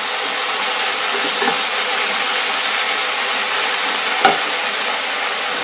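Sliced okra and onion sizzling steadily in hot coconut oil in a pan while a spatula stirs them, with a single knock about four seconds in.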